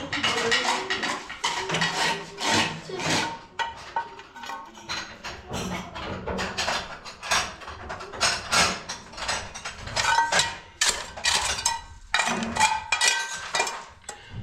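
Irregular clattering and knocking of hard kitchen items being handled and set down, many short hits in quick succession.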